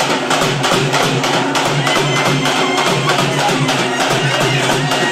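Frame drums beaten in a fast, even rhythm, loud and without a break.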